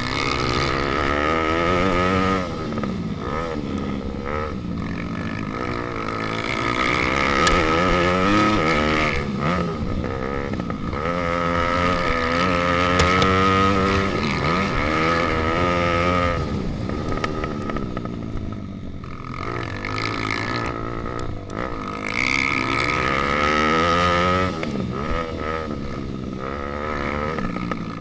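Pit bike engine revving hard on board during a race, its pitch rising and falling again and again as the rider works the throttle and shifts gears.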